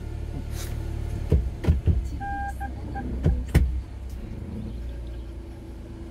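Steady low car rumble heard inside the cabin, with a few short knocks and clunks just over a second in and again past three seconds. Around the middle, an in-car device gives one electronic beep followed by three quick shorter beeps.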